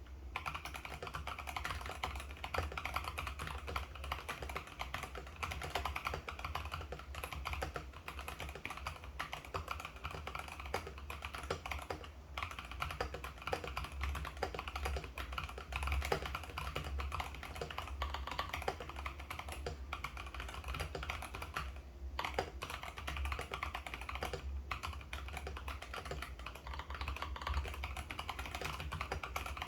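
Continuous typing on a TH80 SE mechanical keyboard with Flamingo linear switches: a dense, steady stream of keystroke clacks with brief pauses, over a steady low hum.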